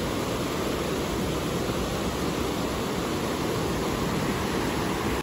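River water rushing over boulders in a shallow rapid: a steady, even rush of white water.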